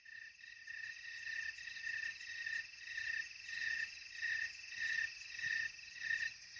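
Opening of a recorded song: a high chirping tone, pulsing about twice a second, fades in on its own before the other instruments and voice enter.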